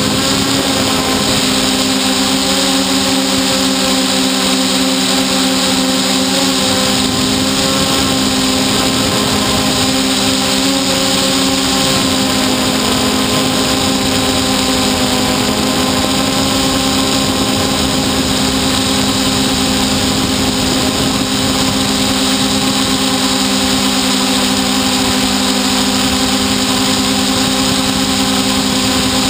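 Hexacopter's electric motors and propellers humming steadily in flight, heard from the onboard camera, over a constant hiss. The pitch wavers slightly a few times as the motors adjust speed.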